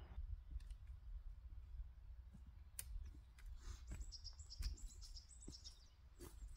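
A small songbird chirping in high, quick phrases for a couple of seconds around the middle. Faint scattered clicks and a low steady rumble run beneath it.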